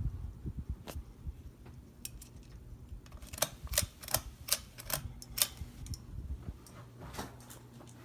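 A quick run of about seven sharp clicks, then a steady low hum, which fits the Hampton Bay Courtney ceiling fan's motor running.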